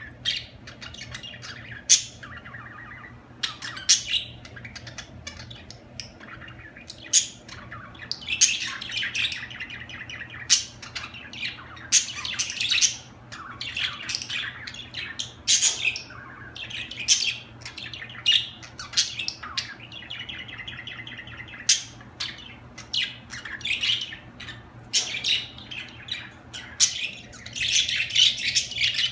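Budgerigars chattering and warbling continuously, broken by frequent sharp chirps and squawks.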